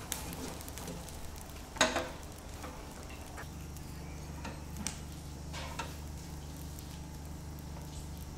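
Open fire crackling under whole suckling pigs roasting on spits, over a steady low hum, with a few sharp knocks, the loudest about two seconds in.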